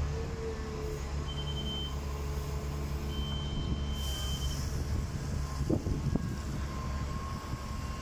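Diesel engine of a Volvo wheeled excavator running steadily while the machine works, with two high electronic beeps in the first half, the second one longer.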